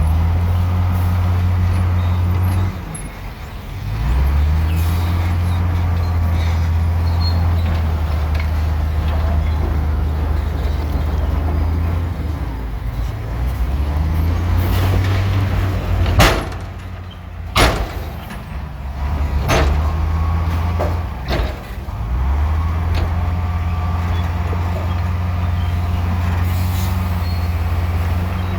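Heavy diesel engine of earthmoving equipment running with a low, steady drone that eases off briefly a few times, with several sharp metallic clanks in the middle.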